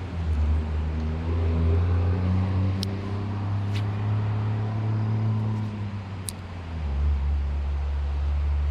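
A motor vehicle's engine running, a steady low hum that settles lower about seven seconds in. A few short high chirps sound over it.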